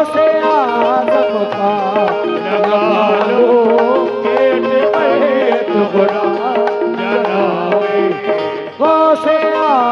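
Qawwali music: tabla playing under a harmonium melody that bends over steady held notes, with no words sung.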